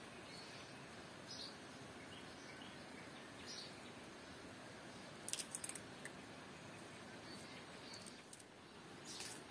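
Faint outdoor ambience with small birds chirping now and then, and a brief cluster of sharp clicks about halfway through, with a few more near the end.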